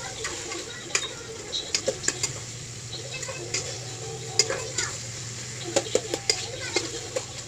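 Cooking utensil stirring food in a pan, with a dozen or so irregular sharp knocks and scrapes of the utensil against the pan over a faint sizzle. A steady low hum runs underneath.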